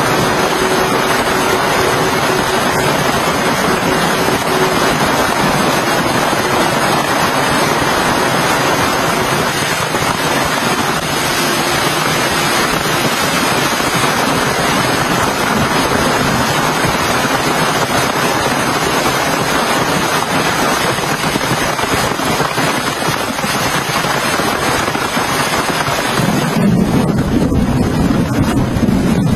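Heavy rain falling steadily, a dense unbroken hiss. Near the end it turns duller and lower.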